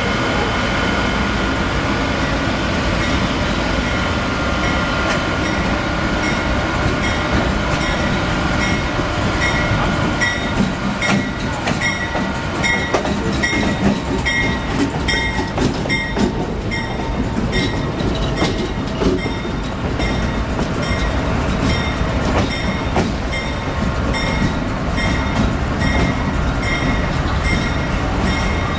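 An Amtrak P42DC diesel locomotive rolls slowly past at close range with a steady whine. About a third of the way in a locomotive bell starts ringing about twice a second, and the wheels click over rail joints and switches.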